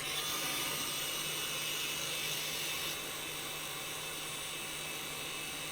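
Electric paint-stripper heat gun running on its lowest setting, its fan blowing a steady airy hiss with a low hum underneath. The level drops slightly about three seconds in.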